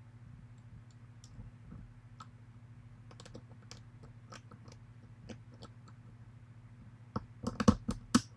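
Lock pick clicking against the pins of a pin-tumbler challenge lock, with sparse faint ticks at first and a quick cluster of louder clicks and knocks near the end. A steady low hum runs underneath.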